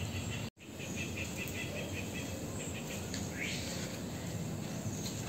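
Outdoor background noise with a run of quick, evenly spaced insect chirps and a couple of short rising bird calls. The sound drops out completely for a moment about half a second in.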